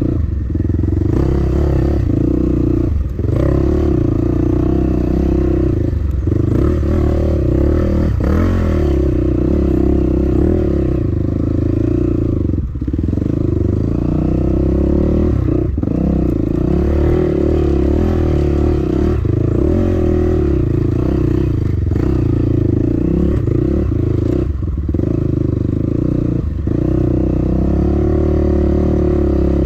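Dirt bike engine running hard under throttle as the bike is ridden along a steep, winding forest trail. The engine note drops briefly about half a dozen times as the throttle is shut off and opened again.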